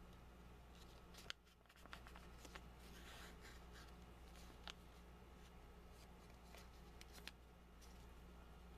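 Faint crinkling and a few sharp crackles of a paper dollar bill being folded and creased by hand, over a low steady hum.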